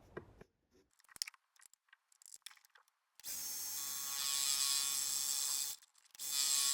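A few faint clicks and taps of handling at the machine. About three seconds in, a mini metal lathe starts running with a steady whirring whine, turning the eccentric section of a small steel shaft. It breaks off for a moment near the end and then runs on.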